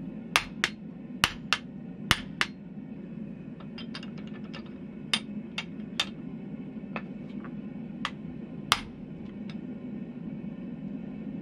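Hand hammer striking the top die of a blacksmithing guillotine, driving the die into a glowing hot steel bar: a dozen or so sharp, irregularly spaced blows, some heavy and some light taps, over a steady low hum.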